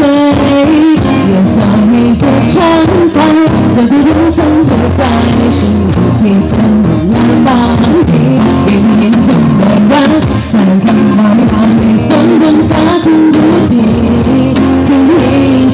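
Live rock band playing: a drum kit struck steadily under electric guitar and a singing voice.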